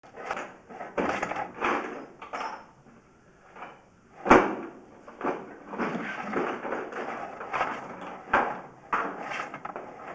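Irregular scraping and rubbing, with one sharp knock about four seconds in: a push-rod drain inspection camera being worked back and forth through a sewer pipe.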